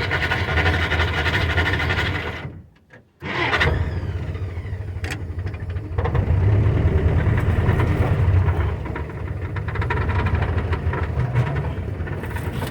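Old Jeep's engine running under load as it crawls over a big rock, with a sharp knock about five seconds in. The sound cuts out abruptly for under a second about two and a half seconds in.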